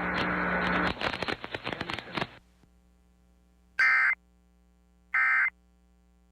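Crackling static with a low hum for about two seconds. Then two short bursts of Emergency Alert System SAME data tones, a warbling digital screech about a second and a half apart: the end-of-message code that closes the alert.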